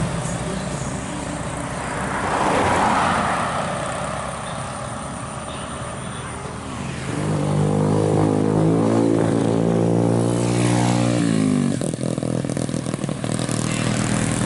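A passing vehicle swells by, then a bus's basuri telolet horn plays a multi-note tune, its pitch stepping up and down, for about four seconds before cutting off suddenly, over steady road traffic.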